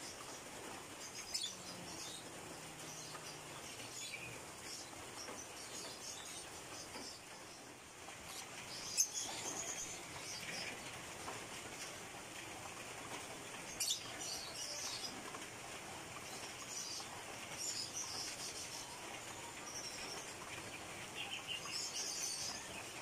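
Small wild birds chirping in short, scattered bursts of high notes over a faint steady hiss, with a few sharp clicks, the loudest about nine seconds in.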